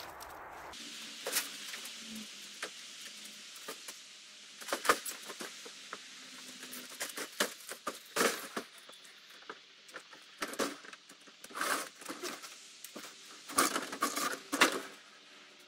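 Scattered sharp knocks, clicks and rattles from a steel up-and-over garage door being pulled down and shut, the loudest cluster near the end.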